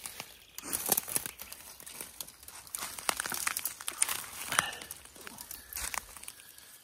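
Dry leaf litter and twigs rustling and cracking underfoot as someone clambers through forest undergrowth, with irregular crunches and snaps throughout.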